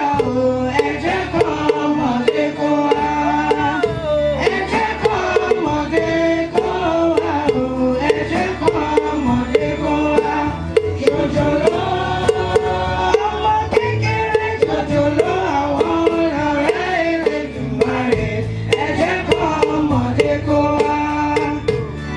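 Choir singing a hymn to a steady hand-drum beat.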